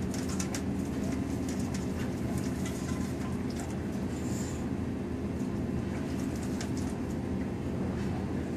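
Steady low hum of a laboratory fume hood's ventilation fan, with faint scattered clicks and clinks of glassware being handled.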